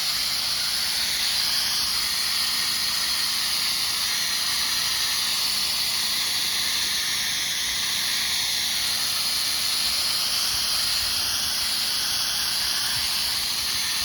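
Pressure washer spraying through an X-Jet soft-wash nozzle set to a shooter stream, giving a steady spray hiss as it sends the diluted bleach mix onto the building and concrete.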